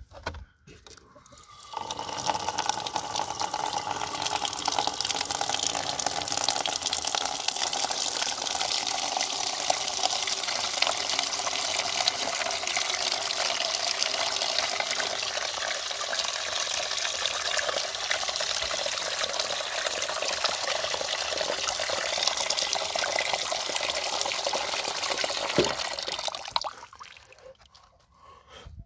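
Water gushing from the outlet valve of an IBC water tank into a shallow metal pan as the pan fills, a steady splashing pour. It starts about two seconds in and stops a couple of seconds before the end.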